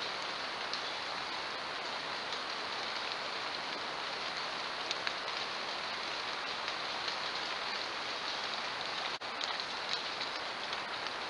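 Steady, even hiss with faint scattered ticks, picked up by a trail camera's microphone. It breaks off for an instant about nine seconds in, at a cut between two camera clips.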